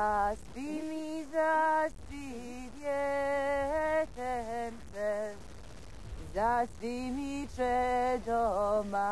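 A woman singing a slow, lullaby-like melody unaccompanied, in short phrases broken by brief pauses, over a steady low hum.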